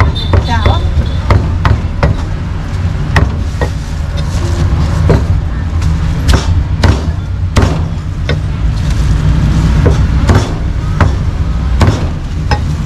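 Cleaver chopping pork on a cutting block: sharp, irregular knocks, roughly one or two a second, over a steady low rumble.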